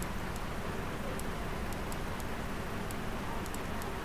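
Steady background hiss from the recording microphone, with several faint, short clicks scattered irregularly through it, the clicks of a computer mouse working the clone tool.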